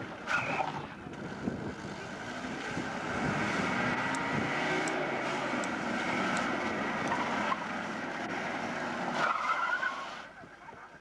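A car engine runs and revs as the car is manoeuvred tightly on a paved course, with brief tyre squeals just after the start and again near the end. The sound fades out at the end.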